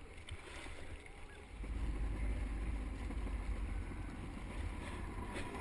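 Jet ski running on the water, getting louder about a second and a half in. Wind rumbles on the microphone.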